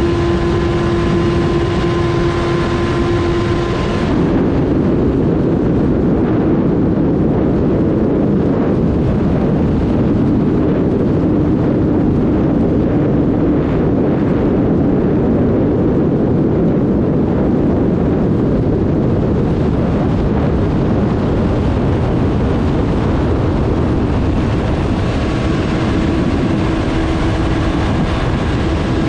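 2023 Kawasaki Ninja 1000SX's 1,043 cc inline-four running hard in sixth gear at over 200 km/h, under heavy wind rush. About four seconds in the engine note drops a little as the bike slows; near the end it rises again as it picks up speed.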